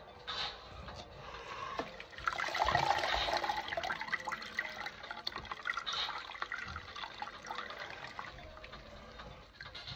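Water splashing and dripping in a sink as a soaked plush toy is lifted and worked to get the water out, loudest a couple of seconds in, then easing to a trickle.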